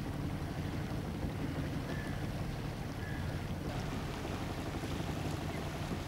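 A river boat's engine running steadily under way, a low even drone, with wind noise on the microphone.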